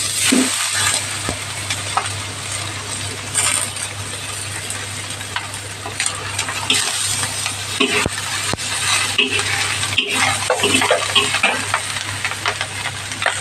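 Food sizzling in hot oil in a pan while being stirred, with frequent sharp clicks and scrapes of a metal utensil against the pan.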